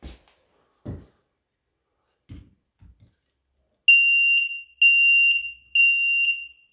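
Ceiling smoke detector sounding its alarm as its test button is pressed with a pole: three loud high beeps in a row about a second apart, then a pause. A few soft knocks come before it.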